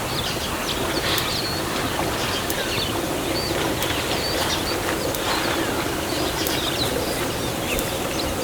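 Birds chirping, many short high-pitched calls repeating throughout over a steady hiss of outdoor ambience.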